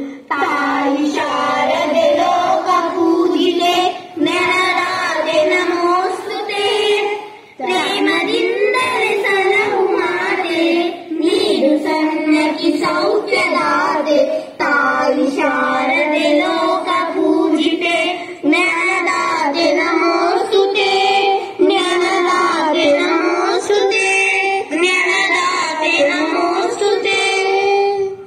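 A boy singing a song solo, one steady melodic voice with brief breaths about four and seven and a half seconds in.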